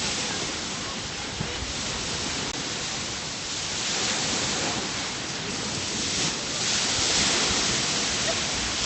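Sea surf on a beach: a steady rush of waves, swelling and easing several times.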